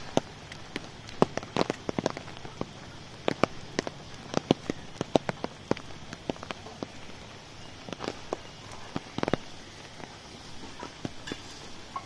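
Rain on an umbrella canopy: irregular sharp drop taps, some in quick clusters, over a steady hiss of rain.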